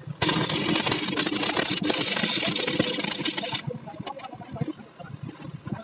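Stick (arc) welding on square steel tubing: the flux-coated electrode strikes an arc about a quarter second in and crackles steadily for about three and a half seconds, then cuts off suddenly.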